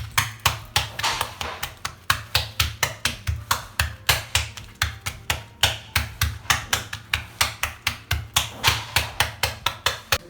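Hands patting and pressing parotta dough flat on a work surface: a fast, even run of slaps, about four or five a second, each with a dull thud.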